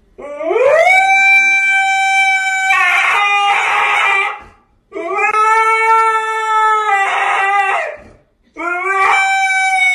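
A husky howling in three long howls. The first swoops up in pitch into a held note lasting about four seconds, the second is held for about three seconds, and the third starts near the end.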